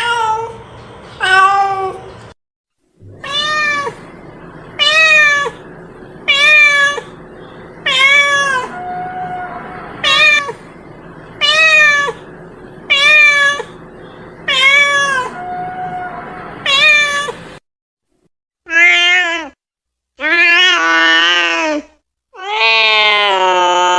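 Cat meowing over and over: a run of short, downward-bending meows about every one and a half seconds, then, after a brief pause, a few longer drawn-out meows, the last one held for over two seconds.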